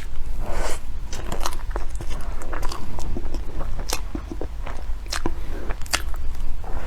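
Close-miked chewing of chocolate cake: irregular wet mouth clicks and soft smacks.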